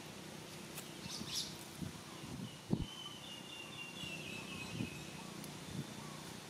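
Outdoor ambience: a steady background hiss with a few soft low thumps, the loudest nearly three seconds in, and a faint, thin, high wavering call from about two and a half to four and a half seconds in.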